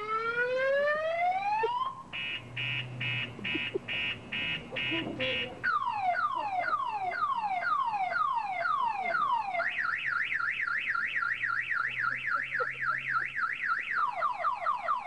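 Car alarm siren cycling through its tones. It gives one long rising whoop, then an even beep about twice a second, then a string of falling chirps. About ten seconds in it switches to a fast up-and-down warble, and near the end it goes back to falling chirps.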